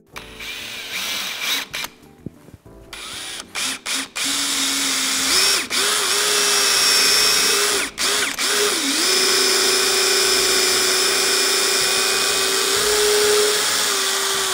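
Worx 20V cordless drill turning a 5 mm drill bit through a wooden table leg. The motor runs in a few short bursts at first, then holds a steady whine under load for about ten seconds, dipping briefly a few times. It stops suddenly near the end.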